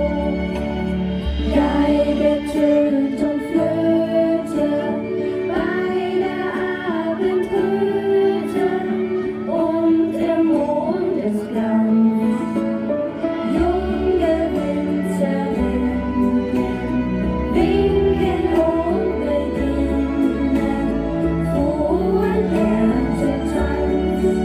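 A song with singing, played over a DJ's sound system.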